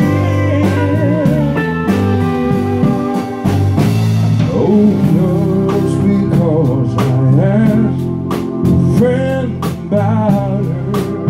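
Live country band playing a slow ballad: electric guitar, bass, drums and pedal steel guitar, with gliding, wavering notes over a steady beat.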